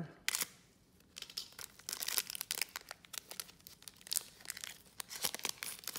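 Shiny foil wrapper of a baseball card pack crinkling and tearing as it is slit and pulled open by gloved hands. There is one sharp crackle just after the start, a short pause, then an irregular run of crinkles from about a second and a half on.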